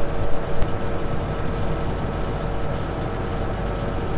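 Large diesel engine of a John Deere 9986 cotton picker running steadily at speed, with a steady whine over the low rumble.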